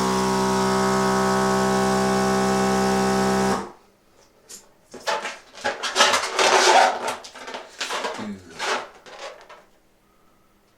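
Electric food mixer motor running with a steady hum, blowing up a latex balloon, then switching off after about three and a half seconds. Several seconds of irregular rubbing and rustling noises follow.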